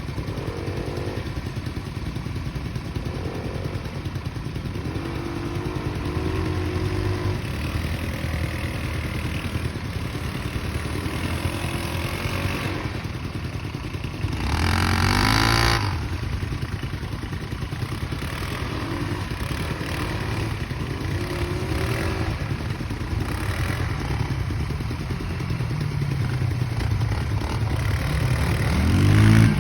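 A 200 cc ATV engine running and revving unevenly, the pitch rising and falling. There is a louder burst of revs about halfway through, and the revs climb again near the end.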